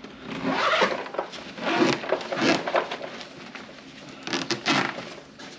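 Zipper on a soft-sided fabric tackle bag being pulled closed around the bag in several rasping pulls.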